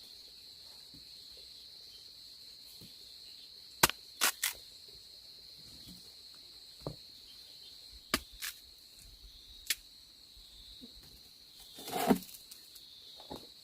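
Insects, crickets or cicadas, keeping up a steady high-pitched drone, with about eight sharp knocks or snaps scattered through it and a fuller thud about twelve seconds in.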